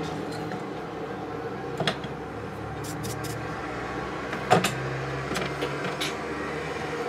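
A steady mechanical hum with a few short, light clicks on top; the loudest click comes about four and a half seconds in.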